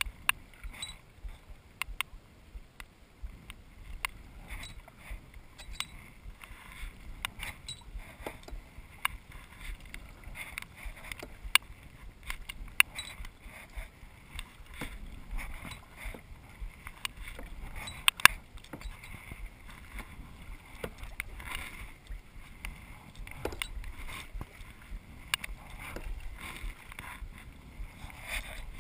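Kayak being paddled: paddle strokes in the water, with frequent irregular sharp clicks and knocks.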